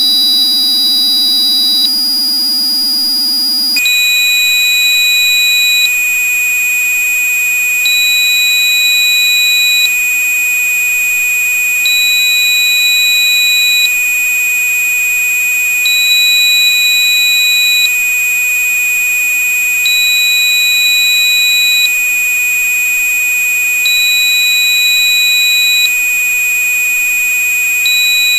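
Synthesized frequency-therapy tones. For about the first four seconds a high steady tone with a low hum plays; then it switches to a steady high-pitched tone labelled 2479.5 Hz, with fainter higher tones over it. A higher beep sounds for about two seconds, then stops for two seconds, over and over, like an alarm.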